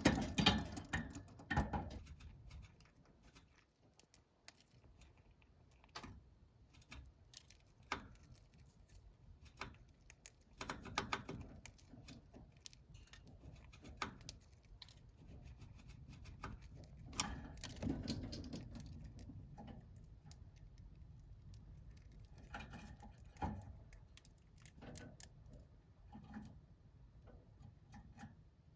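Pet budgerigars moving about in their cage: scattered light taps and clicks of beaks and claws, with a few short, soft bursts of bird noise. It opens louder for the first couple of seconds.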